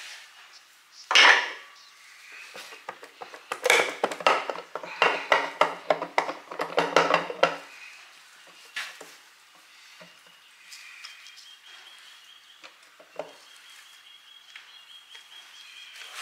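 Metal tools clanking and clinking against the Ford flathead V8's block and intake manifold: one loud clank about a second in, then a few seconds of rapid metallic clinking with a ringing tone, and a few lighter knocks after.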